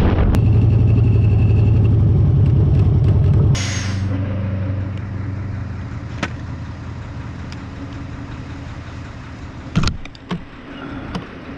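Harley-Davidson Road King motorcycle at highway speed, its engine and the wind loud on the bike-mounted microphone. A little over three seconds in, this cuts to a quieter, steady engine idle with a few clicks and a couple of thumps near the end.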